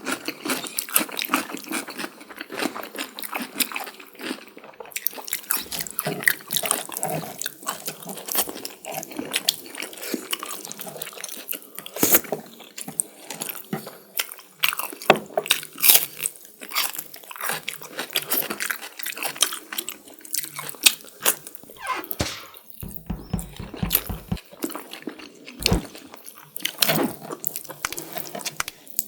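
Close-miked eating: wet chewing, lip smacks and bites of curry, rice and chicken in quick, irregular clicks and squelches.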